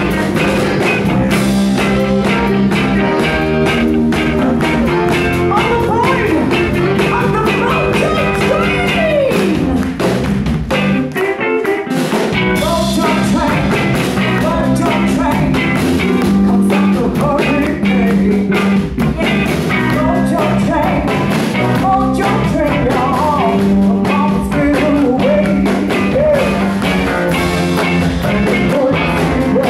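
Live rhythm-and-blues band playing: a woman's lead vocal over electric guitar, electric bass, drums and saxophone. A little past a third of the way in, the bass and drums drop out for about a second before the full band comes back in.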